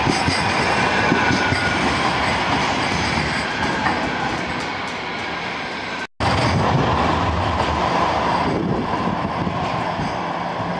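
Bombardier M5000 light-rail tram running past close by, steel wheels rumbling on street rails with a faint high electric whine. The sound cuts out for a moment about six seconds in, then another tram is heard approaching along the track.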